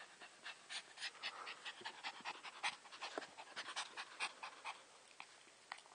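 A small Yorkipoo dog panting hard, quick short breaths about four a second, which die down about five seconds in. It is a dog worn out from play, tongue hanging out.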